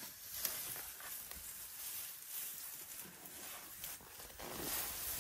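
A young African elephant browsing in dry grass and brush: soft rustling and faint crackles of dry stems and twigs as she feeds, with a few small snaps.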